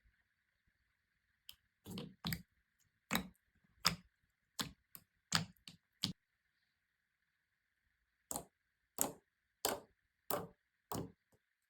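Slime being pressed and worked by hand, giving short, sharp clicking pops about half a second apart: a run of about ten, a pause of about two seconds, then five more.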